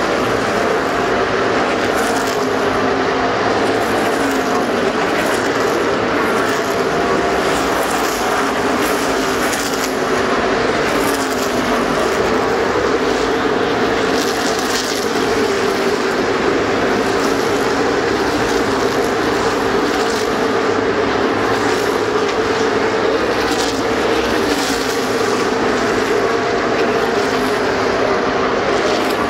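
Field of NASCAR stock cars running at racing speed around the oval, their V8 engines making a steady loud roar. The pitch of single cars slides up and down as they pass.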